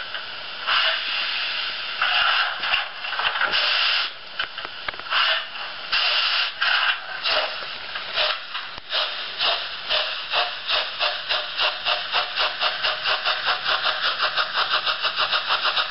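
Märklin H0 model steam locomotive with a LokSound sound decoder, playing steam-exhaust chuffs through its small onboard speaker. The chuffs are slow and uneven at first, then run together into a fast, even beat over the second half, the way the sound follows the locomotive's speed.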